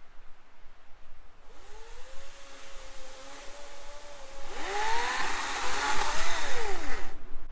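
Chainsaw revving up and down: a whine that holds steady, then rises and falls over a hiss, louder in the second half. It starts about a second and a half in and cuts off abruptly near the end.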